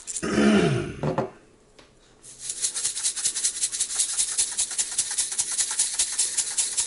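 A seasoning shaker is shaken rapidly over a plate of food. From about two seconds in it rattles steadily at roughly five quick strokes a second. Near the start there is a brief, loud voice-like sound.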